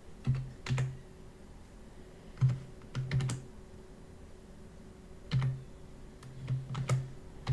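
Keystrokes on a computer keyboard, typed in short irregular clusters of a few keys with pauses between: a passphrase being entered.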